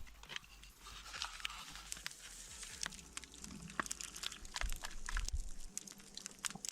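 Soft crunching with scattered clicks and scrapes, as snow and camp dishes are handled during washing up.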